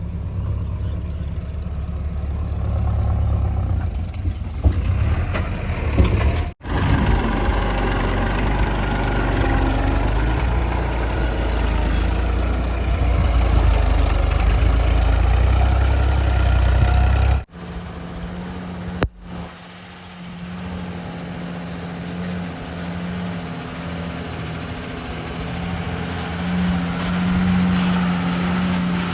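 Heavy diesel engines running at work, heard in several clips that cut abruptly, about a third of the way in and again a little past halfway. After the second cut a steadier, lower hum sets in.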